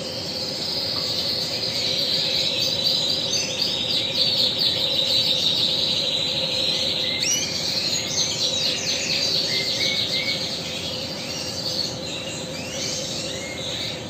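Red canary singing a long, continuous song of rapid trills and rolled notes, high-pitched, with a steady low hum underneath.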